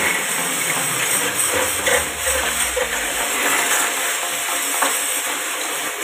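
Steady hissing spray of a pressure-washer water jet striking the plastic fins of a split air conditioner's cross-flow blower wheel as it is washed.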